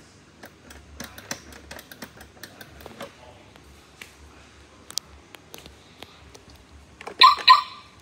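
Scattered light clicks and taps, then near the end two short, loud electronic beeps from a robot vacuum being powered on.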